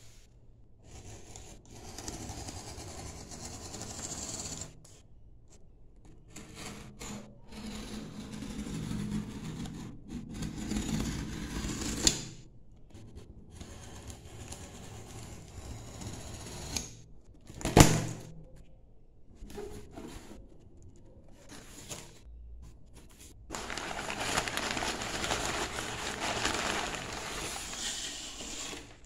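Hands scraping and rubbing over a tape-sealed cardboard box and pulling at the packing tape, in irregular spells. There is one sharp knock about two-thirds of the way through, and a steady rustle over the last few seconds as the box is opened onto bubble wrap.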